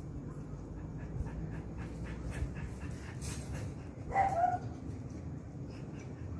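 Jack Russell Terrier panting in a steady rhythm, then giving one short whine about four seconds in.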